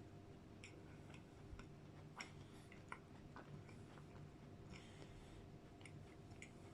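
Near silence: faint, scattered small clicks and smacks of someone quietly eating ice cream, over a faint steady hum.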